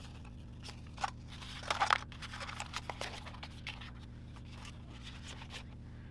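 Paper packaging being handled: a pink paper card of enamel bookmarks and its white paperboard box give a click about a second in, a short rustling scrape near two seconds, then light taps and rustles, over a low steady hum.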